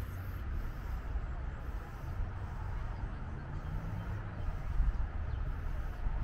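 Outdoor ambience: a steady low rumble with faint, indistinct voices of people in the distance.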